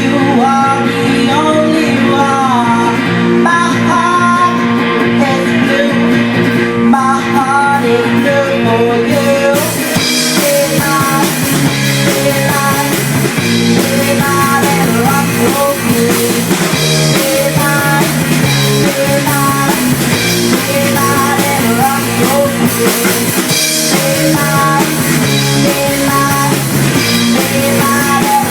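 Rock song with a singing voice over guitar, bass and drums; about a third of the way in, the drums and cymbals come in fuller.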